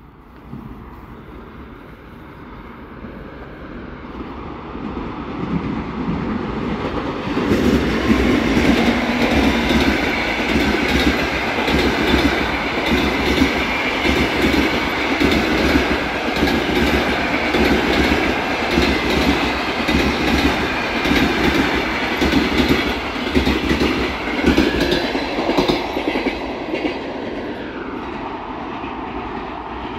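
Long passenger train hauled by an EP2K electric locomotive approaching and passing at speed. The rumble builds over the first several seconds. The coaches' wheels then clatter over rail joints in a steady clickety-clack, easing off near the end as the train goes away.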